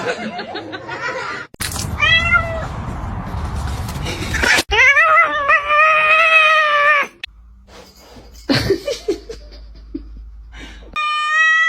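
Domestic cats meowing in a string of short clips: a short meow about two seconds in, a long drawn-out meow around the middle, and another long meow near the end.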